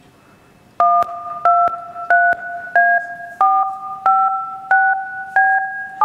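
Recorded touch-tone (DTMF) dialing tones played back over a loudspeaker: about a second in, a string of eight short beeps begins, roughly one and a half a second, each a chord of two pitches. The pitch pair changes from beep to beep, stepping through the keypad key after key.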